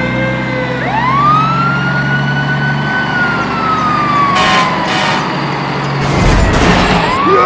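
A siren wailing: one slow rise in pitch, a long hold, then a slow fall, over a steady low engine hum that stops about six seconds in.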